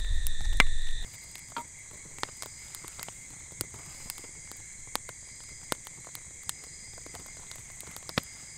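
Night chorus of crickets: steady high-pitched trilling in several layers, changing about a second in, with scattered sharp clicks throughout. A low rumble fills the first second.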